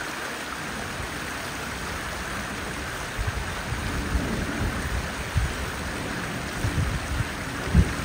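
Steady outdoor rushing noise of water or rain, with irregular low rumbles of wind buffeting the microphone.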